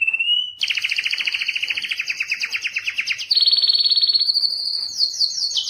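Male domestic canary singing: a held whistle breaks about half a second in into a fast trill, followed by a run of further trills, each at a different pitch and speed, changing every second or so.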